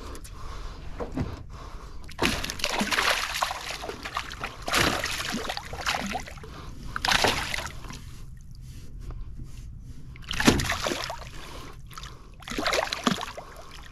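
Water splashing and sloshing in short irregular bursts a second or two apart, the loudest about ten and a half seconds in.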